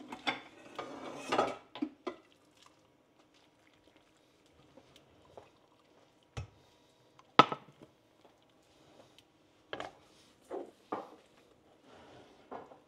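Tableware being handled while eating: a scraping, rustling stretch in the first two seconds, then a handful of separate clinks and knocks of utensils against dishes, several seconds apart, the sharpest about seven and a half seconds in.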